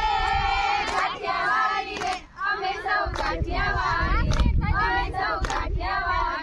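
A group of young women singing together in unison, an action song sung while moving in a circle, with a few short sharp knocks scattered through it.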